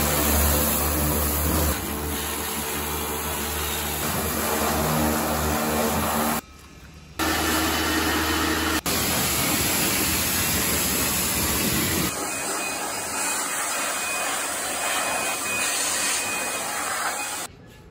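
Kärcher K2 Compact pressure washer running, its electric motor and pump humming under the hiss of the spray, in clips cut together with a short break. From about twelve seconds in, a handheld electric blower runs with a steady rush of air instead, stopping shortly before the end.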